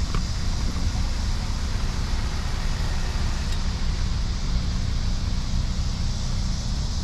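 Steady outdoor background noise: a low rumble with a hiss above it, with no distinct event standing out.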